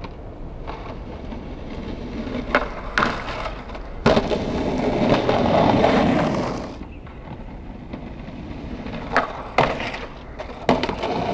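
Skateboard wheels rolling on rough concrete, with sharp clacks of the board popping and landing: two about 2.5 and 3 seconds in, a harder one around 4 seconds, and three more near the end as the skater hits the ledge. The rolling is loudest between about 4 and 7 seconds in, then fades.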